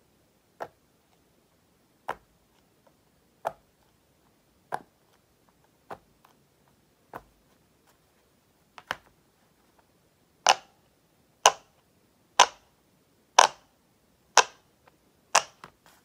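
Silicone pop-it fidget toy bubbles being pressed one at a time, a single sharp pop every second or so. The last six pops, from about ten seconds in, are much louder.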